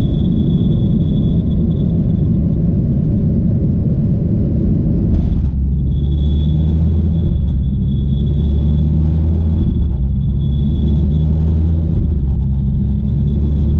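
Boeing 737 jet engine noise: a loud, steady rumble with a steady high whine. About five and a half seconds in, a lower droning hum sets in. The engine has taken a bird strike.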